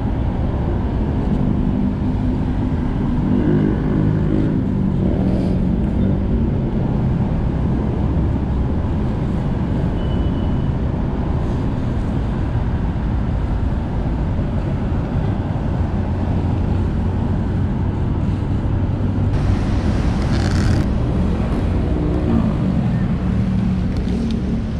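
Steady low rumble of road traffic and vehicle engines. A passing engine rises and falls in pitch about four seconds in and again near the end, and a short hiss sounds about twenty seconds in.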